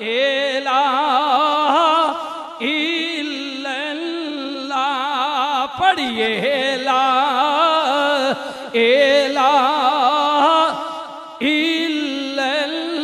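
A man's voice chanting a devotional verse in long held notes with heavy vibrato, in several phrases broken by short pauses for breath.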